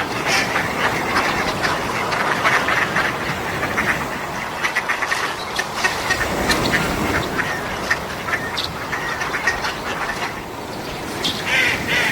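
Sea waves washing on a beach, a continuous hissing, crackling surf with a fuller wave breaking about six to seven seconds in.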